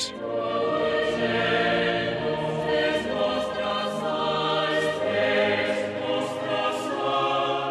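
A choir singing held chords, several voices moving slowly from chord to chord.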